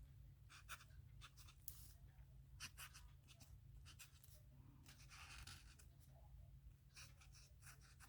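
Pen writing on paper: faint, irregular scratchy strokes as letters are drawn, over a steady low hum.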